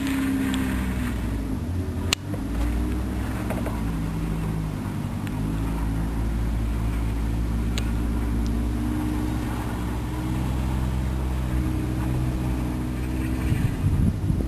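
A car engine running, its pitch shifting a few times and dropping near the end, with a sharp click about two seconds in and a fainter one near eight seconds.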